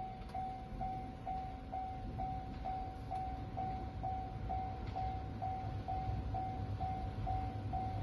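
Japanese railway level-crossing warning bell ringing: an electronic ding repeating evenly about twice a second, sounding while the crossing's red lights flash to warn of an approaching train.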